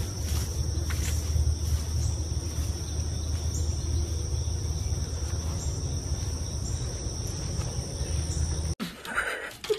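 Insects chirring in a steady high-pitched drone over a continuous low rumble; both cut off suddenly near the end.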